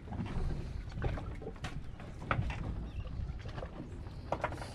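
Steady low wind-and-water rumble on an open boat, with scattered light clicks and rustles of gloved hands handling a metal fishing jig and its leader line, a cluster of them near the end.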